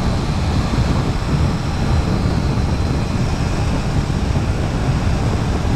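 Steady wind rush and low rumble on the microphone from a SYM 125 cc scooter riding at about 107 km/h, with the scooter's running noise underneath.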